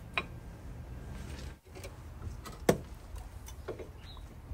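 A few short metallic clicks and knocks, the loudest about two-thirds of the way through, as new front brake pads are slotted into the caliper carrier.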